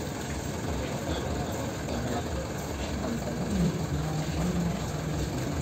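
Steady low rumble of a running engine under a general background din.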